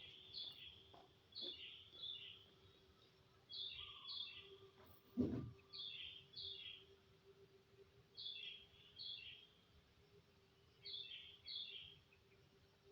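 Faint bird calls: pairs of short, high, falling chirps repeating every second or two over a faint steady hum, with a single dull knock about five seconds in.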